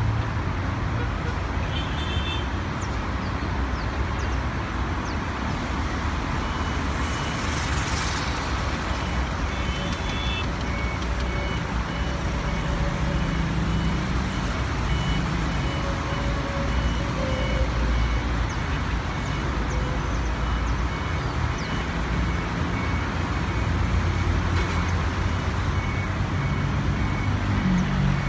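Airport apron noise: a steady low rumble of ground vehicles and engines, with a ground vehicle's reversing beeper sounding about once a second from about six seconds in. A brief hiss comes about eight seconds in.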